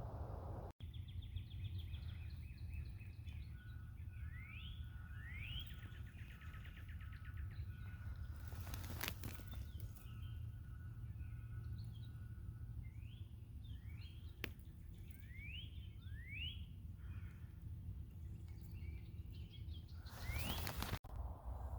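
Songbirds calling: a trill early on, then many short, quick rising whistled notes, over a steady low background rumble. A couple of sharp clicks sound midway, and the sound drops out briefly about a second in and again near the end.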